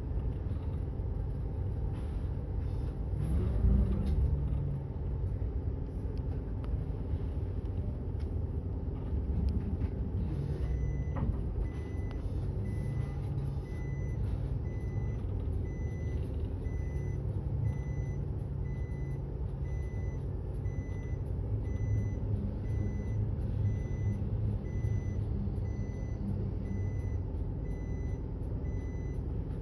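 Route bus engine running low, and about a third of the way in a reversing alarm starts beeping at an even pace of about one beep a second: the bus is backing up.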